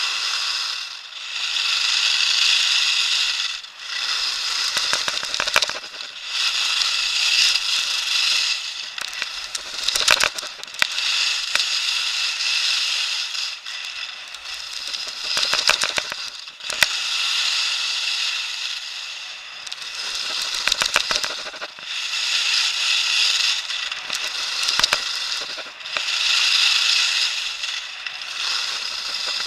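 Skis carving down a groomed piste: the scrape of the edges on hard snow swells and fades with each turn, every few seconds, with scattered sharp clicks and crackles.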